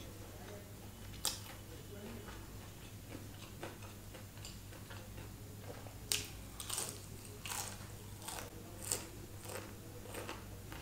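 Biting and chewing crispy fried chicken, a KFC boneless chicken strip, with crunches: a sharp one about a second in and a run of them in the second half.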